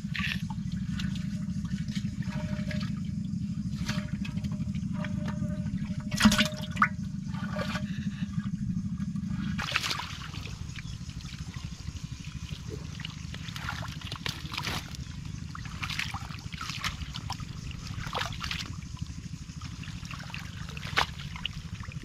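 Shallow muddy water trickling and splashing as a fishing net is hauled and gathered out of it, with scattered short splashes and slaps over a steady low rumble.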